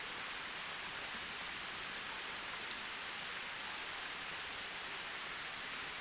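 Steady, even hiss of outdoor night ambience with no distinct events.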